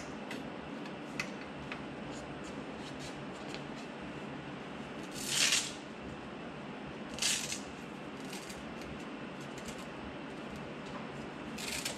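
Velcro straps on a paramotor frame being ripped open: three short tearing sounds, one about five seconds in, one a couple of seconds later and one near the end, with light clicks of handling over a steady background noise.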